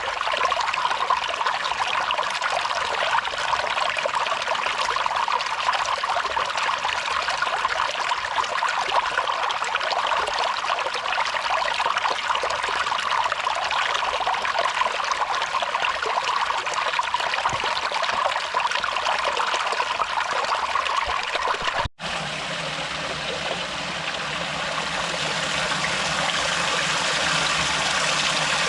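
Waterfall drip spilling and splashing into a pool in a steady trickling patter. About two-thirds of the way through it cuts off abruptly to a fuller, deeper rush of water that slowly grows louder.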